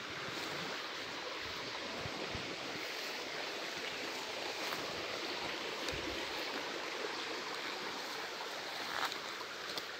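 Steady rushing of a forest stream, with a few soft thumps and brushing of fern foliage.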